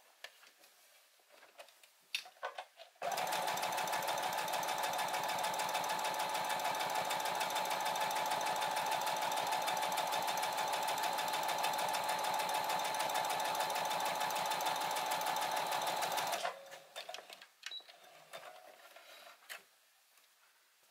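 Brother XR3340 computerized sewing machine stitching steadily at an even speed, starting about three seconds in and stopping about thirteen seconds later. It runs freely with no jam, its seized bobbin driveshaft bushing freed, cleaned and regreased and its bobbin timing reset.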